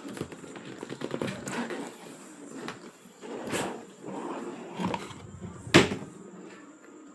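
Packaging being handled during an unboxing: irregular rustling and clatter with several knocks, the loudest a sharp knock about six seconds in.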